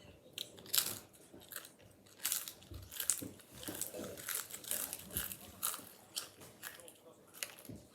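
Potato chips being bitten and chewed close to the microphone: a fast, irregular run of sharp, crisp crunches.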